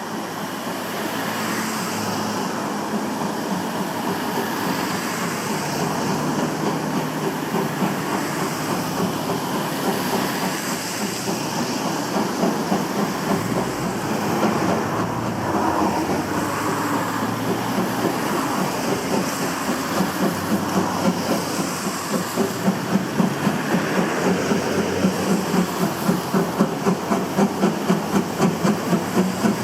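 C11-class steam tank locomotive hauling its train, running steadily with a constant rolling rumble. Over the last few seconds a regular beat of about two to three strong pulses a second emerges.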